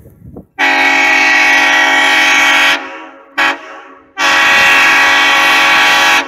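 Southern Railway F-unit diesel locomotive's multi-chime air horn sounding two long blasts with a short toot between them.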